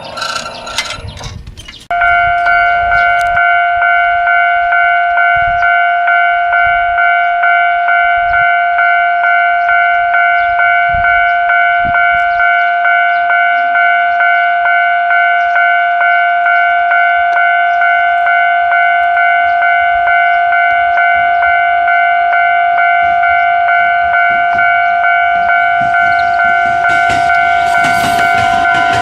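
Japanese railway level-crossing warning bell, the electronic kind, starting up about two seconds in and ringing steadily at about two strokes a second. Near the end the rumble of an approaching train rises beneath it.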